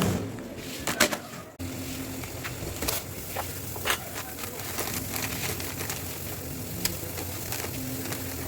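A person eating spicy ramen noodles: irregular wet mouth clicks, smacks and chewing, with a louder snap about a second in.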